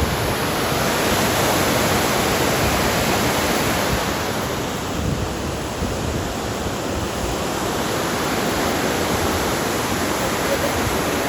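River waterfall rushing steadily, a dense, even wash of falling water.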